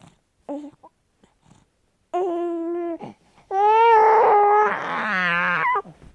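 Baby fox kit whining and crying in a series of high, pitched calls: a short call, then a steady one, then a longer, louder call that turns rough and harsh in the middle and drops lower at the end.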